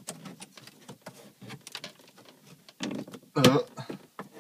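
Plastic trim pry tool clicking and scraping around the edge of a 1999–2004 Jeep Grand Cherokee's radio trim bezel, a run of small clicks as the bezel's clips are worked loose, with one louder, longer sound about three and a half seconds in.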